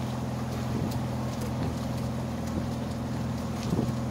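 Small canal day boat's engine running steadily at cruising speed, a low even hum.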